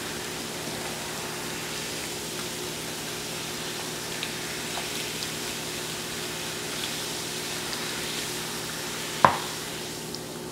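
Coca-Cola poured in a steady stream from a plastic bottle onto a ham in a plastic tub, the soda fizzing as it lands. A single sharp knock about nine seconds in.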